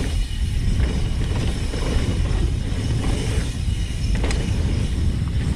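Mountain bike riding fast down a rocky gravel trail: tyres crunching over loose stones and the bike rattling, with a steady low rumble of wind buffeting the camera microphone and an occasional sharp knock.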